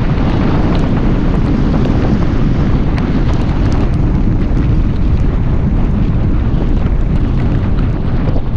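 Steady, heavy rumble of wind buffeting the microphone of a camera mounted outside a moving car on a wet road in the rain, with scattered sharp taps of raindrops striking the camera.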